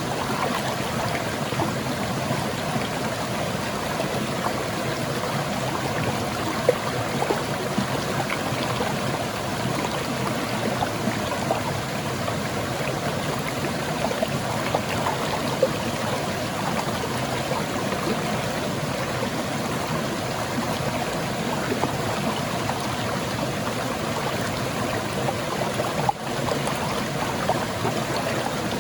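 Water splashing over rocks in a small waterfall and stream, a steady rush of water full of small splashes and gurgles.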